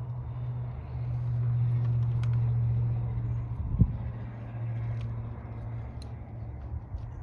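A steady low mechanical hum, louder for a couple of seconds after the first second, with a single sharp knock a little past the middle.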